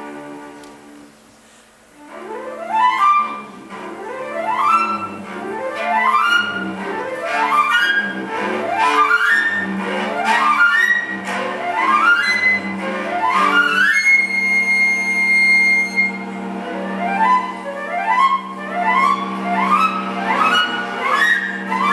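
Flute and cello duo playing classical chamber music: after a soft opening, fast rising runs repeat about every second and a half over a held low cello note. About two-thirds through a single high note is held for a couple of seconds, then the rising runs return.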